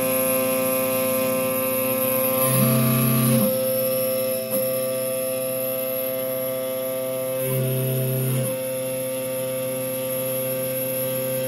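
Ghost Gunner 3S desktop CNC mill milling a stainless steel slide: a steady high spindle whine layered with motor hum tones. A lower hum comes in for about a second twice, roughly five seconds apart.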